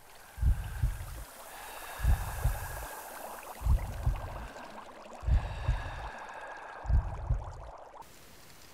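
Intro sound effects over water visuals: five deep double thumps, one about every one and a half seconds, over a watery hiss with faint held tones. All of it stops about eight seconds in, leaving only a faint steady underwater hiss.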